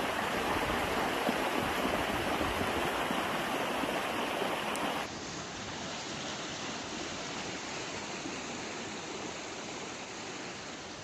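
Floodwater rushing in a torrent, a loud steady wash of moving water. About five seconds in it drops suddenly to a quieter steady wash of rain and standing floodwater.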